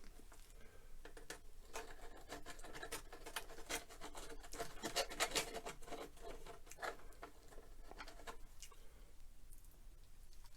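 A wooden popsicle stick scraping and tapping on wood as it works yellow wood glue under the loose veneer of a drawer: an irregular run of light scratches and clicks, busiest in the middle.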